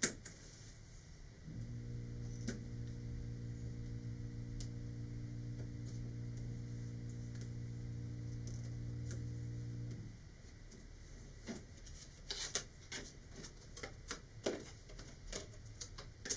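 Sharp clicks and taps of paper centering rings being popped out of their laser-cut sheet with a hobby knife and set down on a cutting mat, scattered through the last few seconds. Before that a steady low electrical hum starts about a second and a half in and cuts off about ten seconds in.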